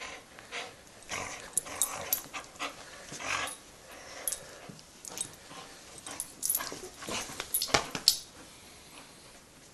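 A dog playing tug-of-war with a rope toy: irregular short noisy sounds from the dog and the tugging, with a louder burst of sharp clicks and scuffling about eight seconds in.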